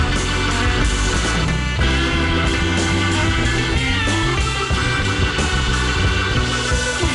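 A 1960s rock record with electric guitar and a steady bass line, played on the radio.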